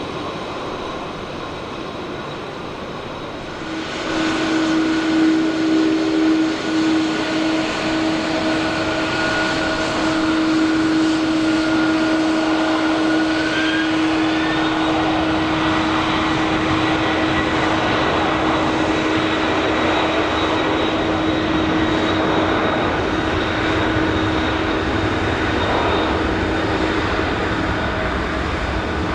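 Boeing 747-400D's four jet engines running at high power, getting markedly louder about four seconds in as thrust comes up, typical of a takeoff. Steady engine whines sit over a broad rushing noise, with some whines stepping up in pitch midway.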